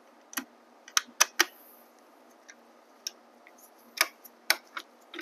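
A scattering of sharp, irregular clicks and taps, about eight, from a small hand screwdriver and tiny screws against the plastic cover of a Bafang M600 mid-drive motor as the screws are started into place.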